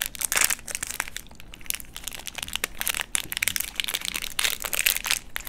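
Chocolate wrappers and packaging being crinkled and crackled as they are handled and opened: a dense run of irregular crackles.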